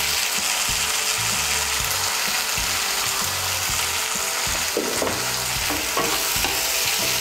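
Onion, tomato and mustard-paste masala sizzling steadily in hot oil in a kadai, with a spatula stirring through it a few times a little past the middle.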